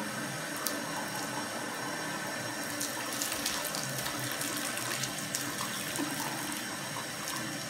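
Bathroom tap running in a thin steady stream into a ceramic washbasin. The water splashes on and around a cat sitting in the basin as it paws at the stream.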